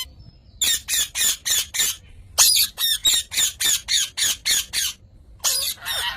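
A parrot calling in quick runs of short, loud squawks, about three to four a second, in three bursts with brief pauses between them.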